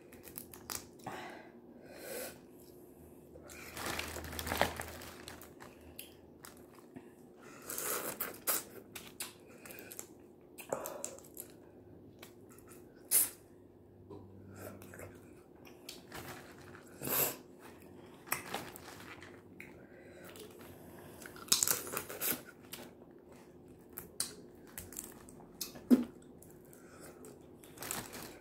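Boiled crawfish being cracked, peeled and eaten close to the microphone: irregular sharp crackles of shell breaking and tearing, with chewing in between.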